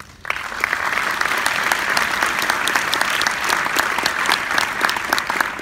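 Audience applauding, a dense crowd of hand claps that breaks out suddenly and holds steady.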